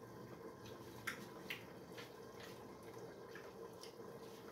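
A few faint, short clicks scattered over a low, steady hum; the two clearest come about a second and a second and a half in.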